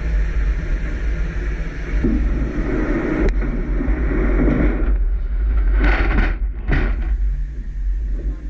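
An icebreaker's engines running with a steady low rumble and hum. Two short noisy bursts come about six and seven seconds in.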